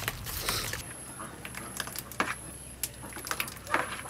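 A spoon knocking and scraping against a plastic mixing bowl while batter is stirred: irregular light clicks and taps, a few a second.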